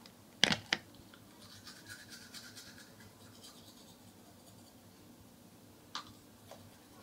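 Manual toothbrush scrubbing teeth, faint rapid scratchy strokes. Two sharp knocks about half a second in are the loudest sounds, with another click near the end.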